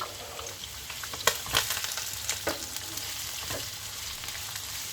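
Onions and whole spices sizzling in hot vegetable oil in a pan, a steady frying hiss, while being stirred, with several sharp clicks of the utensil against the pan.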